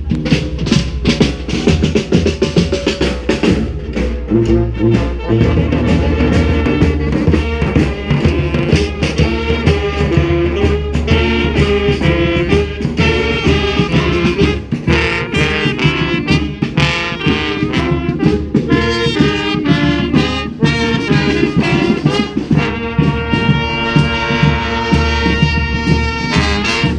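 Street brass band playing an upbeat tune: trumpets and trombones over a steady drum beat, the horns holding long notes near the end.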